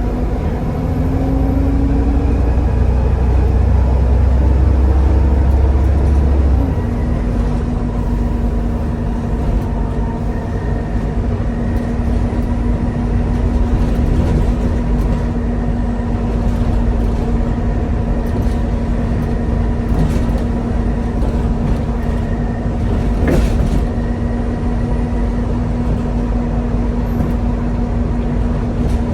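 Volvo B7TL double-decker bus with ZF automatic gearbox, its six-cylinder diesel pulling hard with a rising note for the first six seconds or so. Then the deep rumble drops away and a steady whine holds as the bus runs at speed.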